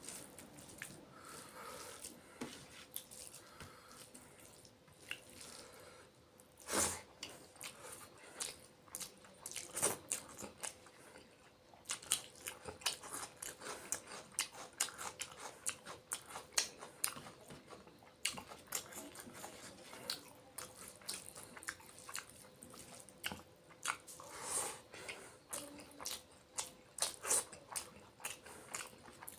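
Close-miked chewing of a fish curry and rice meal: many quick wet smacks and crunches, coming thicker in the second half.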